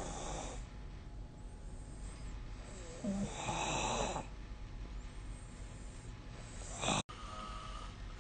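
A sleeping person snoring: one loud snore about three seconds in lasting about a second, with shorter breaths at the start and just before the end, where the sound cuts out abruptly for an instant.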